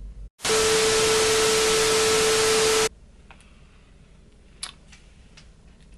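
A loud burst of static-like hiss with a steady mid-pitched tone running through it, starting about half a second in and cutting off abruptly about two and a half seconds later. Faint room tone with a few small clicks follows.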